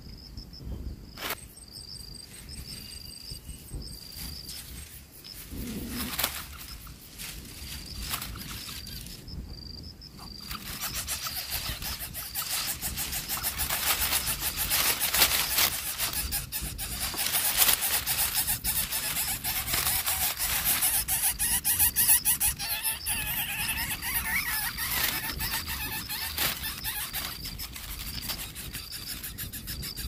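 Lesser coucal nestlings begging: a rapid, raspy buzzing that starts about a third of the way in and grows loud in the middle, over a faint high tone that repeats on and off.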